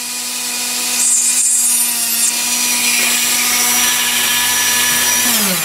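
Dremel rotary tool with a small ball-shaped cutter running at a steady whine, grinding into a hollow copper rivet pin in a potentiometer's plastic switch casing for a moment about a second in. Near the end it is switched off and winds down with a falling pitch.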